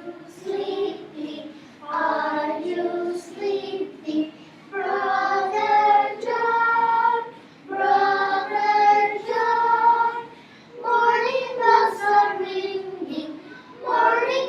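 A group of young children singing a song together in unison, in short phrases of held notes with brief pauses between.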